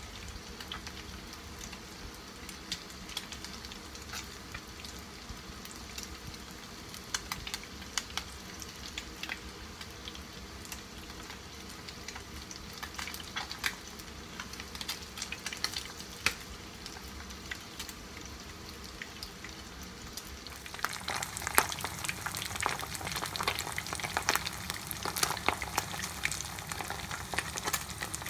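Breaded horse mackerel fillets (aji fry) shallow-frying in oil in a frying pan: a steady sizzle with scattered pops and crackles. The sizzle grows louder and the crackling denser about three quarters of the way through.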